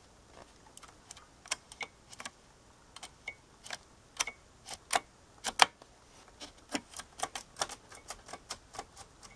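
Irregular sharp clicks and light taps, sometimes several in quick succession, a few of them followed by a brief high ping.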